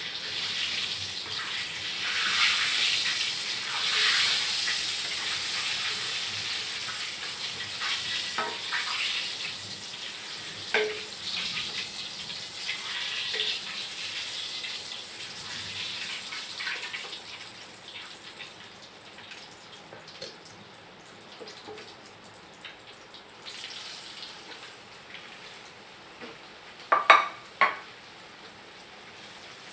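Food frying in oil in a wok, sizzling loudest for the first several seconds and then dying down, with scattered clinks and scrapes of a metal spatula against the wok. Two sharp clinks of utensils come near the end.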